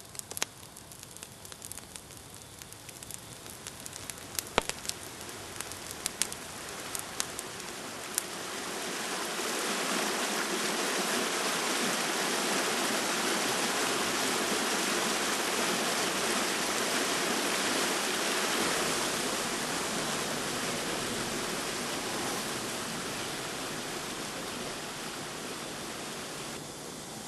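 Scattered sharp crackles for the first several seconds, then a steady rushing noise that swells up about eight seconds in and holds, easing off slightly toward the end.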